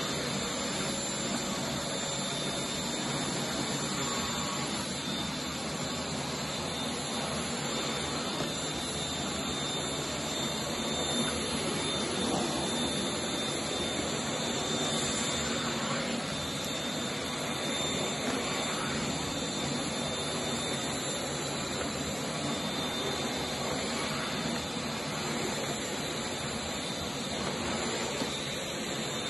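Cordless stick vacuum running steadily, its motorised brush head pushed over a shag rug: an even rush of air with a high, steady whine.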